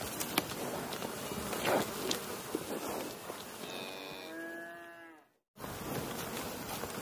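A cow mooing once, a single call of about a second and a half whose pitch rises and then falls, over a steady noisy background.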